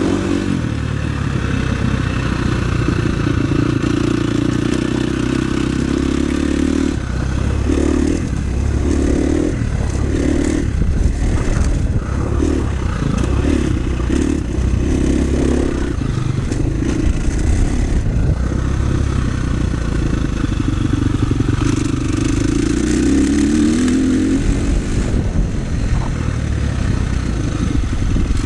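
KTM 350 SX-F's single-cylinder four-stroke engine being ridden hard, revving up and down with the throttle. Through the middle it comes in a run of short on-off bursts, and a few seconds before the end it winds up in a rising rev.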